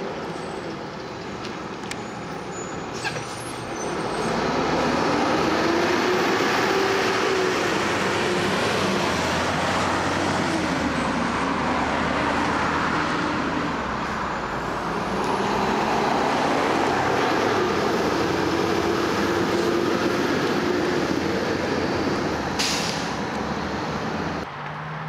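Diesel garbage trucks driving past, engines running with a low rumble and their pitch rising and falling as they pull through and away. Near the end comes a short hiss of air brakes.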